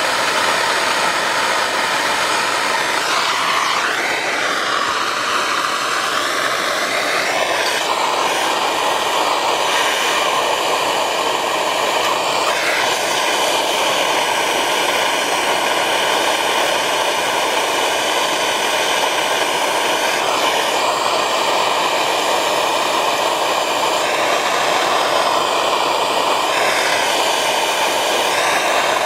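Propane torch burning with a steady hiss as its flame heats a copper pipe joint for soldering. The pitch of the hiss shifts several times.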